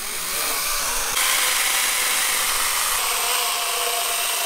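Small battery-powered mini chainsaw running steadily as it cuts through a log, with a constant whine; it grows louder about a second in.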